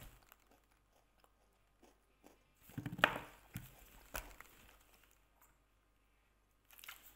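Quiet handling of a small red plastic candy bottle, with a sharp plastic click about three seconds in and another a second later; otherwise little sound.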